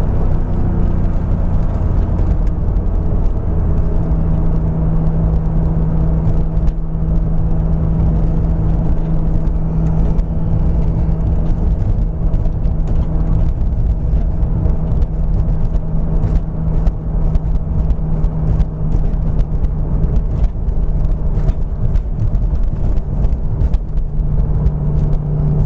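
Turbocharged S52 straight-six of a 1999 BMW Z3 M Coupe running at a steady, light-load cruise, the engine note holding nearly constant pitch under heavy road rumble.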